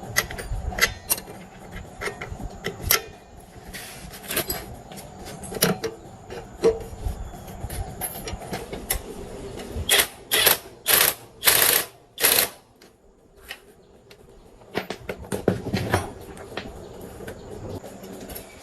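Hand tools and metal parts clicking and clattering in irregular hand work, with a run of four or five short hissing bursts about ten to twelve seconds in.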